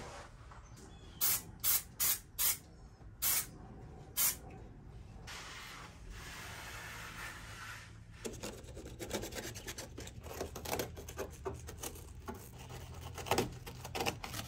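Hands rubbing and pressing upholstery fabric over foam onto a van's metal window flare. There are several short swishes in the first few seconds, then a denser crackly rubbing and scraping from about eight seconds in as the fabric edge is worked in along the metal.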